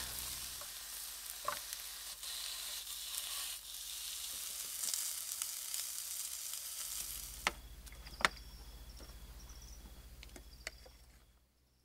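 Mushrooms, snow peas and then lamb chops sizzling in a frying pan while being stirred. About seven seconds in the sizzling stops, and a quieter stretch follows with a few sharp clicks and faint high chirps, fading out near the end.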